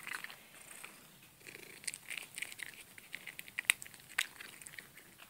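Domestic tabby cat eating food from a person's hand: faint, irregular small clicks of licking and chewing, a few a second.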